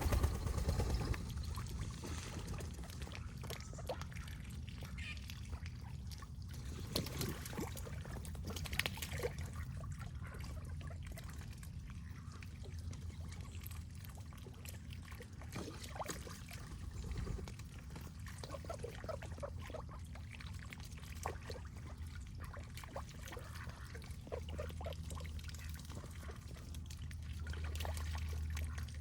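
Water trickling and splashing, with a few faint animal sounds, likely ducks, and a steady low rumble underneath.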